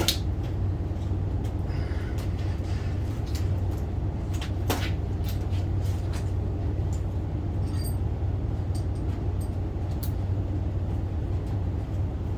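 Steady low machinery hum, with a few scattered clicks and knocks over it.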